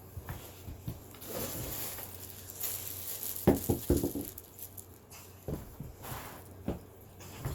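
Plastic packaging rustling and crinkling as items are handled, with a few light knocks and clicks.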